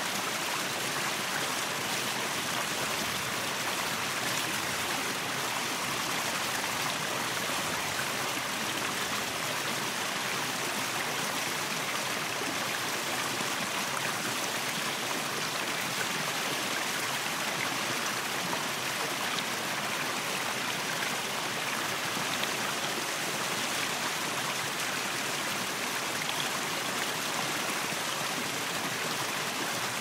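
Small waterfall cascading over rocks into a pool: a steady, unbroken rush of falling and splashing water.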